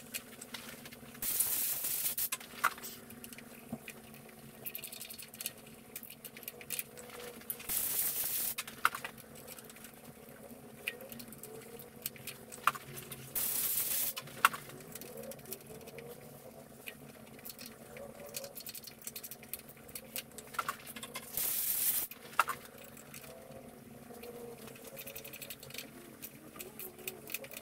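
Socket ratchet turning the cylinder-head bolts of a Volvo TD 100 diesel. There are four runs of fast ratchet clicking, each about a second long, with scattered clicks and taps of the tool between them.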